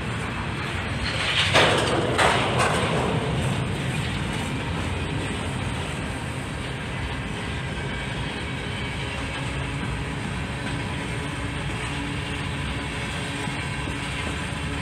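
Freight train cars rolling past with a steady rumble and rattle of wheels on rail. A brief louder clatter comes about a second and a half in.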